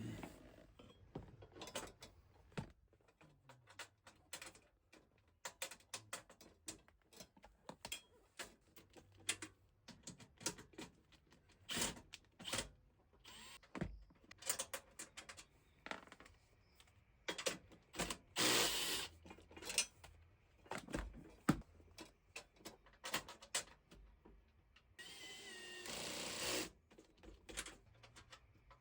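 Hand tools working on metal parts: scattered clicks, clinks and knocks of wrenches and sockets. About two-thirds through comes a noisy burst of about a second, and near the end a longer noise of about two seconds with a faint whine in it.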